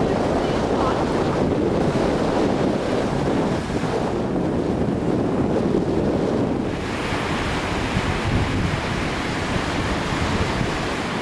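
Wind buffeting the microphone over the wash of a choppy sea: a steady rushing rumble, which turns to a brighter hiss about seven seconds in.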